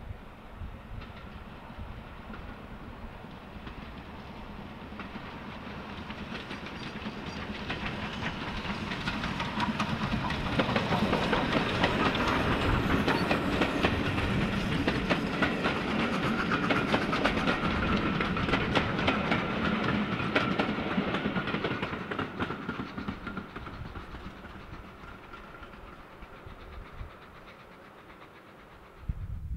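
Steam locomotive hauling a passenger train, working past. Its exhaust builds as it approaches; the carriages clatter loudly over the rail joints for about ten seconds in the middle, then the sound fades away.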